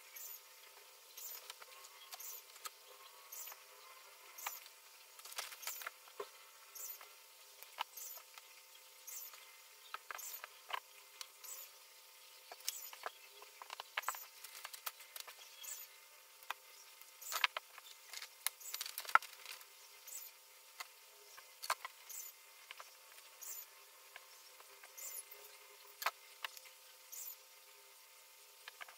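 Light, irregular clicks and taps of small plastic model-kit parts being handled and fitted together on a mat, over a faint high ticking that repeats a little more than once a second.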